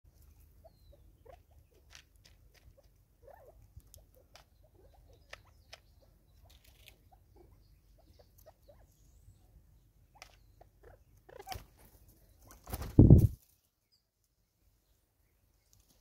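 Natal spurfowl pecking and scratching at seed and dry leaf litter: a scatter of small taps and clicks. About thirteen seconds in comes a brief loud flurry of low flapping as the spurfowl flush from the feeder.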